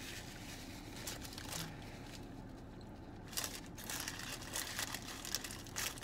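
Foil and paper taco wrappers crinkling as they are handled, along with chewing. The rustles come in scattered short bursts, with a quieter stretch about two to three seconds in.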